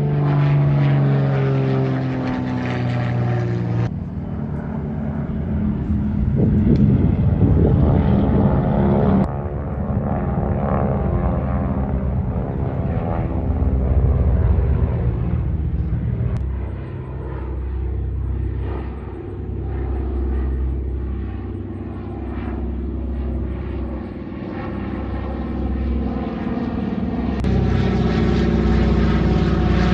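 Piston-engine propeller warbird aircraft droning as they fly over, the engine pitch sliding up and down as they pass. The sound changes abruptly a few times, and a heavy low rumble runs under the middle part.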